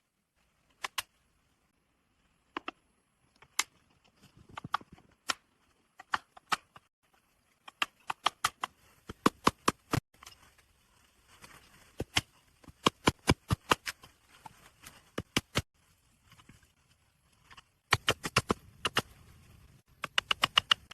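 A string of sharp snaps and clicks at irregular spacing, some single and some in quick runs of several, over a faint rustling.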